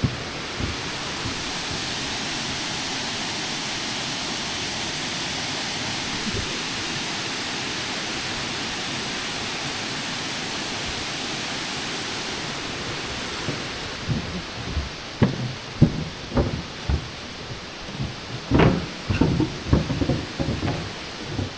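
A steady rushing noise that fades about two-thirds of the way through, followed by a string of irregular knocks and thumps.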